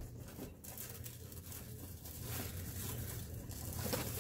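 Faint rustling and light taps of objects being handled off to the side, over a low steady hum.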